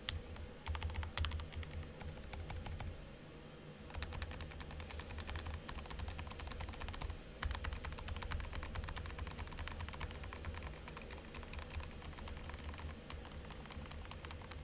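Fast, continuous typing on an AKKO ACR Top 40 keyboard with lubed AKKO Haze Pink silent linear switches and SA-profile keycaps. There is a short pause about three seconds in, after which the keystrokes run on steadily.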